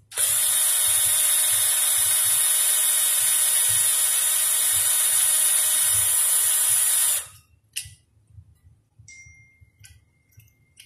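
Cordless drill-driver running steadily, driving a screw to tighten a toilet seat-cover bracket down onto the ceramic bowl. It stops abruptly after about seven seconds, and a short click follows.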